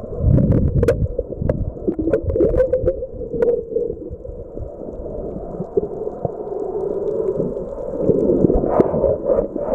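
Muffled underwater sound heard through a camera's waterproof housing: water moving and rumbling against the housing, with several sharp clicks in the first few seconds and louder churning near the end.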